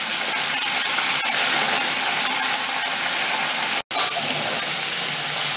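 Washed fenugreek leaves sizzling loudly in hot oil in an aluminium kadai, giving a steady hiss as the water clinging to the leaves hits the oil, while they are turned with a steel spatula. The hiss breaks off for an instant about four seconds in.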